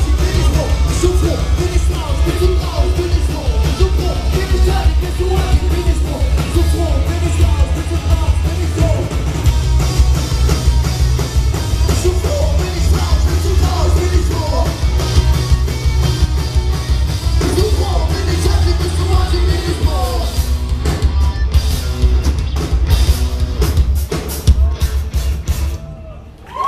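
Punk rock band playing live: electric guitars, bass and drum kit under sung and shouted vocals. Near the end the band plays a run of separate hard stabs and the song stops.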